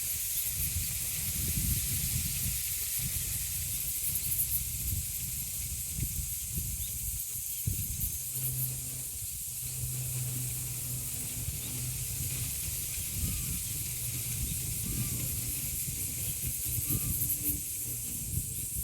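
Wind gusting through birch foliage and buffeting the microphone, under a steady high shrill of cicadas. A low hum joins about halfway through, drops out, and returns near the end.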